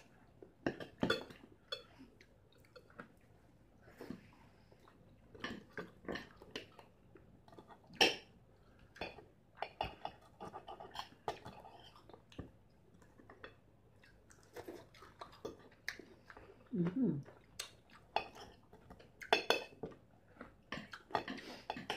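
Metal knife and fork clinking and scraping on a plate in irregular sharp clicks, with chewing in between. About three-quarters of the way through comes a short falling hum.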